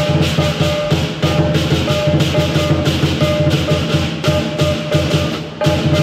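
Lion dance percussion band playing: a large barrel drum beaten in a fast steady rhythm together with crashing hand cymbals and ringing gongs, about four strokes a second, with a brief break about five and a half seconds in.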